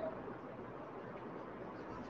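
Chalk scratching faintly on a blackboard as a word is written, over low steady room noise.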